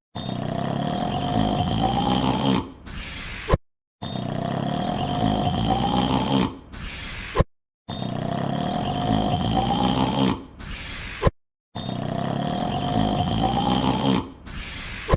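A man's long, drawn-out yawn with a slowly rising pitch. It is looped, repeating about every four seconds, four times here. Each pass fades, ends in a sharp click and a split second of silence before the yawn starts again.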